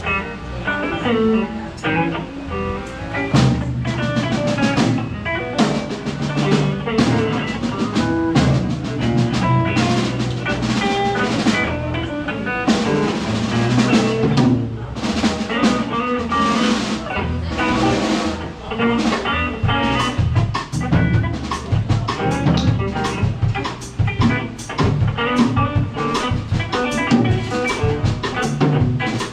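Live blues band playing: electric guitar over a drum kit, with regular drum and rimshot hits.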